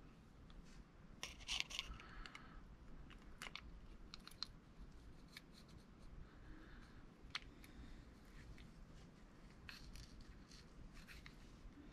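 Faint scattered clicks and light scrapes of small parts of an Abu Garcia CS Pro Rocket baitcasting reel being handled and fitted back together.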